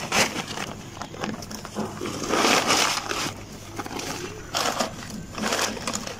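Cement-bag sacking rustling and crinkling as it is pressed and folded into a plastic crate, in several bursts, the longest and loudest from about two to three seconds in. A steady low hum runs underneath.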